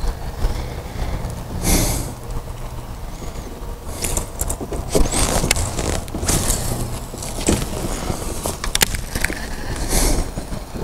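Wind rumbling on the microphone, with brief hissing noises every couple of seconds and a few sharp clicks about halfway through.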